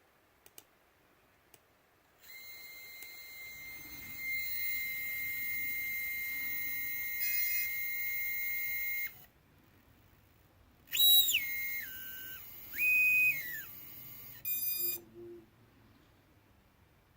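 Electronic speed controller sounding tones through a brushless RC motor: a long steady high beep for about seven seconds, then after a pause a falling series of stepped tones, another brief tone and a short pulsed higher beep, over a faint low hum. The owner takes the motor and ESC to be faulty.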